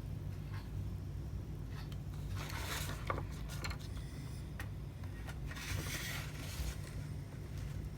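Small clicks and two short scraping stretches from tools and small metal parts being handled while an iPhone XR is taken apart, over a steady low hum.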